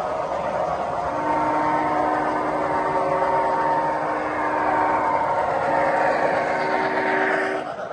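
Three-rail model trains running on the layout: a steady rolling rush of wheels on track with several steady motor hums, growing louder as a train approaches, then dropping off suddenly near the end.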